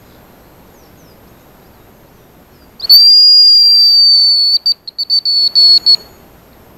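Hazel grouse decoy whistle blown close by, imitating the male's song: one long, very high thin whistle, then a quick run of short broken notes.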